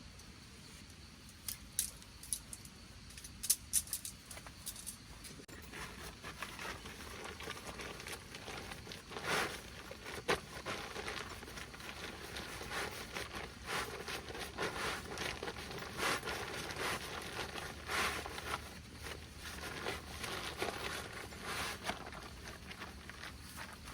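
Rain pattering, heard as irregular separate drops tapping, few at first and more frequent after a few seconds.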